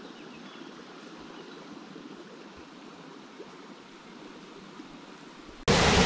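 Steady rush of creek water flowing. About a second before the end it cuts abruptly to the much louder rush of a small waterfall pouring into a pool.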